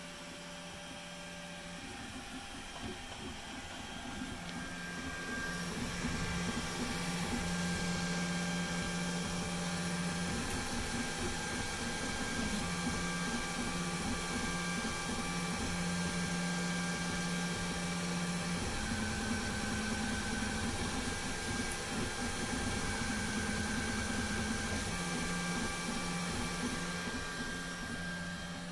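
Voron 2.1 CoreXY 3D printer printing: its stepper motors hum in steady tones that change pitch with each move of the toolhead, over a steady whir. It grows louder a few seconds in.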